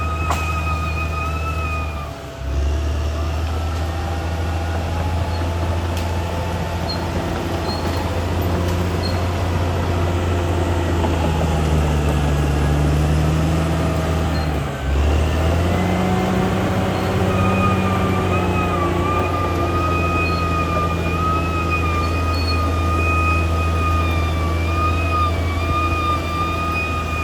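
CAT D6R XL bulldozer's diesel engine running steadily with a low drone, its pitch shifting up and down around the middle. A high wavering whine sits over it at the start and again from about two-thirds through. The sound drops out briefly twice, near the start and about halfway.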